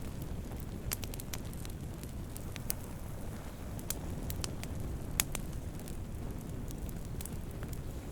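Campfire burning wood: a steady low rush of flames with irregular sharp crackles and pops, one louder pop about five seconds in.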